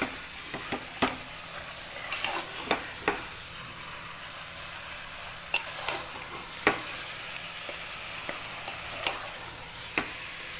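Marinated mutton sizzling in hot oil with browned onions in an aluminium pressure cooker while a metal spoon stirs it, the spoon clinking sharply against the pot every second or so at irregular moments. This is the dry frying (bhuna) of the meat with the onions before the cooker is closed.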